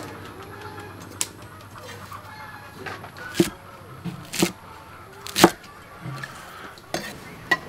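Cleaver chopping water spinach on a thick round wooden chopping block: about seven sharp single chops at an uneven pace, roughly one a second, the loudest a little past halfway.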